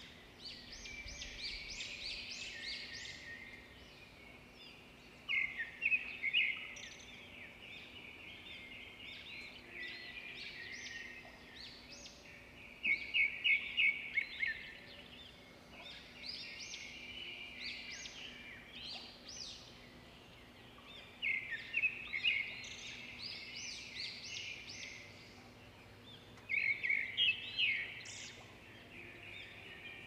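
Birds singing, a steady chorus of chirps and trills, with a louder burst of rapid repeated notes every several seconds.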